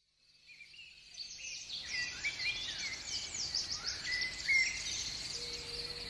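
Morning bird chorus fading in from silence: many small birds chirping and singing over a steady high tone. A low hooting call sets in near the end, rising in pitch.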